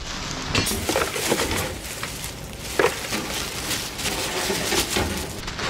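Junk being sorted by hand: scattered knocks and clatters as pieces of metal and plastic are picked up and tossed aside, with rustling in between.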